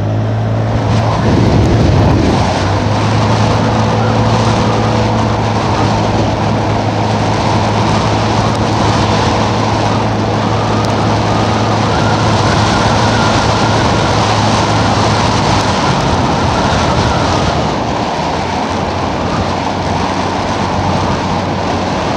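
Gasoline engine of a ridden vehicle running steadily under way, with wind and road noise rushing over the microphone. The engine note comes up sharply just before the start and shifts about sixteen seconds in.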